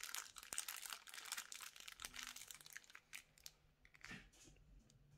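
Figure packaging crinkling and rustling as it is handled, thick for the first three seconds, then thinning to a few faint rustles.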